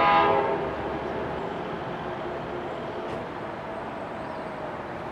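Distant train horn sounding one short blast, a chord of several steady tones that fades over about a second, over a steady background rumble.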